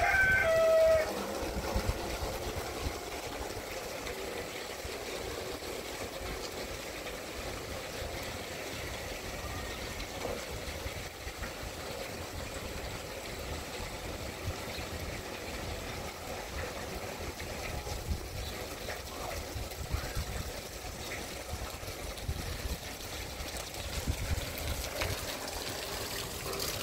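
Water running steadily from an outdoor standpipe tap and splashing onto the wet ground, over an unsteady low rumble. A rooster's crow trails off in the first second.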